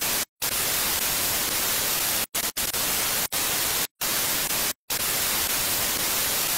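Television static: a steady white-noise hiss, broken several times by brief, sudden drops to silence.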